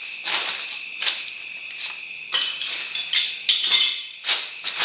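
Metal parts clinking and clanking, about six or seven sharp knocks with the loudest cluster near the end, as motorcycle front-wheel and drum-brake parts are handled and fitted. Crickets chirp steadily behind.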